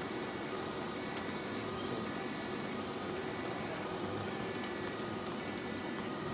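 Steady machine hum and hiss from an automatic tube-to-tube welding setup running, with a few faint high tones and scattered light ticks.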